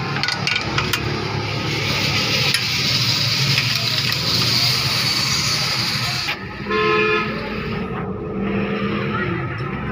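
Running vehicle engine and traffic noise, with a vehicle horn honking once for about a second and a half past the middle. A few sharp metallic clicks of steel spanners on the exhaust flange nuts come in the first second.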